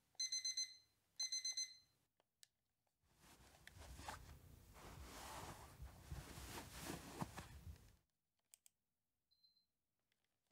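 Electronic alarm clock beeping in two quick bursts of rapid high beeps, stopping about two seconds in. Then a few seconds of bedding rustling as a person rolls over and sits up in bed.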